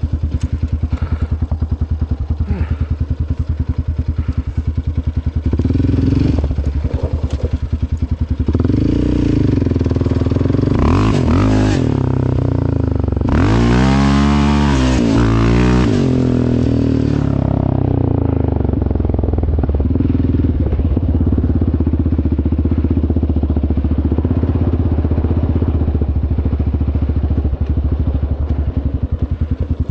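ATV engine running at low revs with a regular pulse, revving up and down several times in the middle before settling back to a steady low run.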